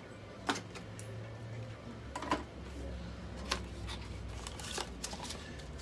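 Irregular light clicks and taps, about six of them, like small objects being handled, over a low steady hum.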